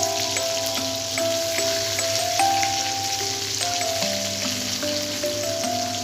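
Katla fish pieces sizzling steadily as they fry in hot oil. Background music plays a slow melody of held notes alongside.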